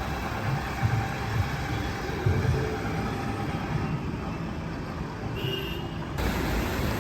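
Street traffic: a steady rumble of engines and tyres from passing vehicles, with a brief higher-pitched tone a little past five seconds in.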